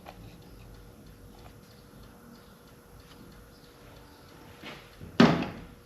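Faint light clicks of hand tools being handled, then one loud bang about five seconds in that dies away within half a second.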